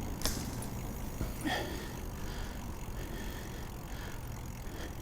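Bicycle being ridden: a steady rolling and wind noise, with a sharp click about a quarter second in and a brief, fainter sound about a second and a half in.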